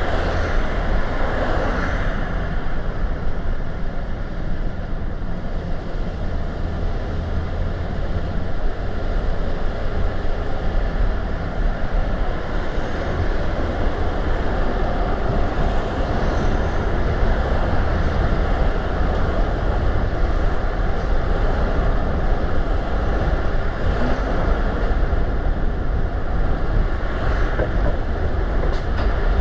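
A car driving along a road: steady tyre and road noise over a low rumble.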